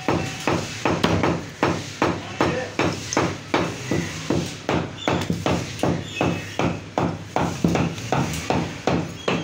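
Meat cleaver chopping goat ribs on a round wooden chopping block: quick, even strokes, about three a second, each one cutting through meat and bone into the wood.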